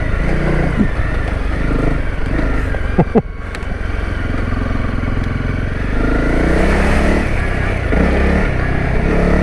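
Honda CRF250 Rally's single-cylinder four-stroke engine running under a rider on a slippery mud trail, its pitch rising and falling with quick throttle blips about a second in, about three seconds in and near the end.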